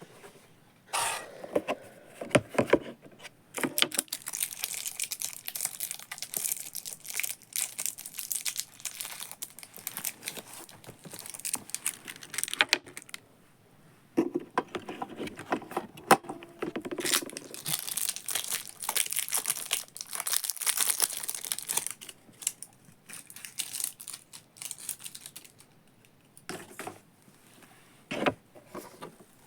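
Handling noise of a small plastic robot vacuum and its packaging: plastic crinkling and rustling with many sharp clicks and knocks, in two long busy stretches and then a few scattered clicks, as AA batteries are loaded into it.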